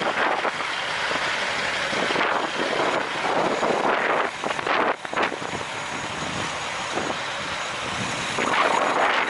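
Gusting wind on the microphone, a loud rushing noise that swells and drops every second or two.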